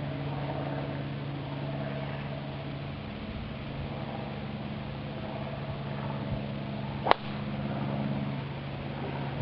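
Golf driver striking a teed ball on a full tee shot: a single sharp crack about seven seconds in, over a steady low hum.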